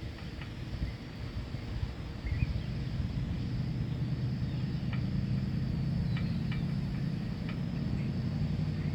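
Low steady rumble that sets in about two and a half seconds in and holds, over a faint steady high trill and a few faint clicks.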